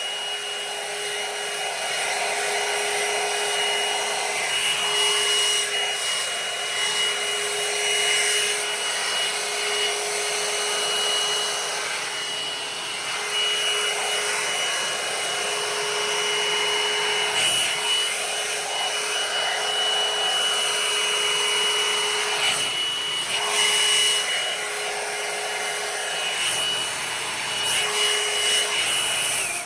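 Revlon One-Step hot-air brush dryer running on a high setting: a steady blowing rush with a constant motor whine. It is switched off and cuts out suddenly at the very end.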